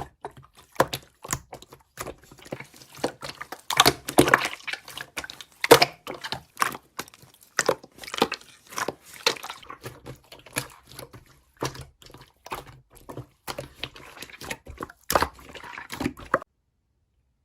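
Slime being squished and worked by hand, giving irregular wet clicks and pops; it cuts off suddenly near the end.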